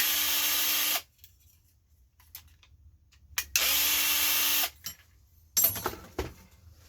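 Power drill-driver backing out screws, run in two bursts of about a second each, each spinning up then holding a steady whine. A few sharp clicks and knocks follow near the end.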